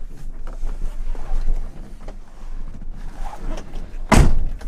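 Rustling and shuffling of someone getting into the cab of a 1992 Toyota Hiace truck, then one loud thud about four seconds in as the cab door is shut.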